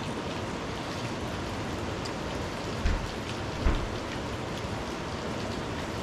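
Steady rain falling, an even hiss, with two dull low thumps close together about three seconds in.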